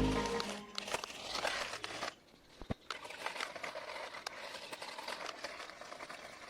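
Background music fading out over the first second, then faint crinkling and scraping with a few light clicks, one sharper click a little before the three-second mark.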